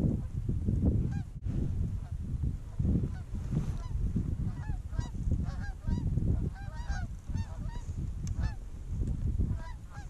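A flock of Canada geese honking: many short, arched calls overlapping, busiest from about halfway in. Underneath is a low, gusty rumble of wind on the microphone.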